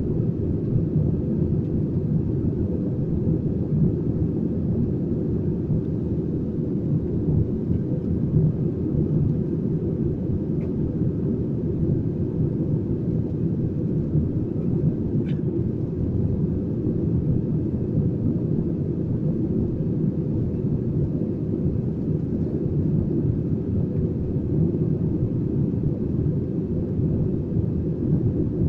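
Steady low roar of an Airbus A320's engines and airflow, heard inside the passenger cabin as the airliner climbs through cloud.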